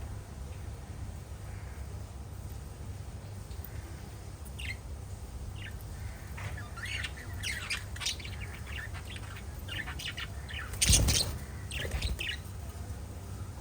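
Small pet parrots chirping and squawking. The first few seconds are quiet, then come scattered short chirps, a busier run of chirps, and one loud sharp squawk about eleven seconds in, all over a steady low hum.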